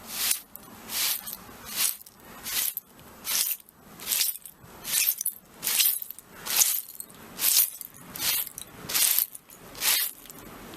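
Broom sweeping shards of broken glass in steady, even strokes, roughly one every 0.8 seconds, each a crunching scrape with the glass fragments clinking.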